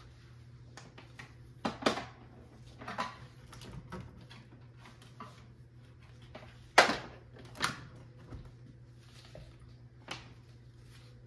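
Handling noise as a printer's power cord is plugged in: scattered knocks and bumps against the printer and its stand, the loudest a sharp knock about seven seconds in, over a low steady hum.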